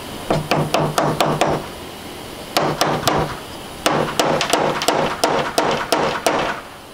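Soft-faced mallet tapping wooden dowels into holes, in three quick runs of light blows at about four to five a second, the last run the longest.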